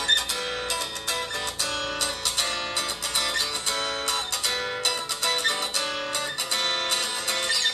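A Samsung phone's incoming-call ringtone: a guitar-like plucked melody of quick, bright notes, several a second.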